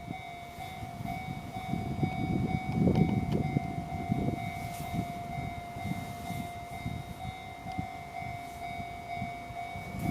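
Train running on the track: an uneven rumble with a steady whining tone held over it, loudest about three seconds in.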